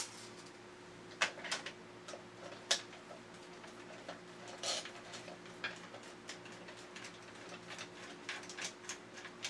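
Irregular small clicks and ticks of a screwdriver turning screws in the plastic body of a toy robot, with the plastic shell knocking lightly as it is handled. The clicks come more often near the end.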